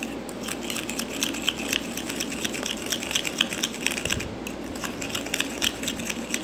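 A metal spoon beating instant coffee, sugar and water by hand in a plastic bowl, clicking and scraping against the bowl in a fast, steady run of strokes. This is dalgona coffee being whipped without a beater, the mixture already turning light and frothy.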